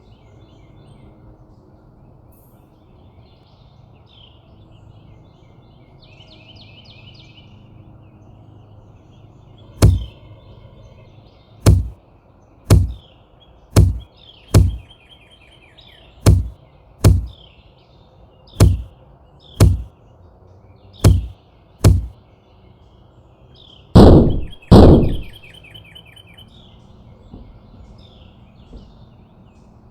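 A bird at a clear plastic window feeder knocks its beak against the feeder, about a dozen sharp, loud knocks roughly a second apart, then two heavier thumps. Small birds chirp faintly throughout.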